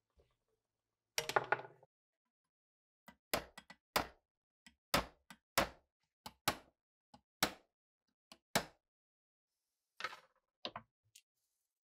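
Hammer striking a punch against a rusted RPG-7 part clamped in a steel bench vise: about ten sharp metal knocks at irregular intervals, each a single hit. A brief rough scrape comes a second in, and a few lighter scrapes and clicks near the end.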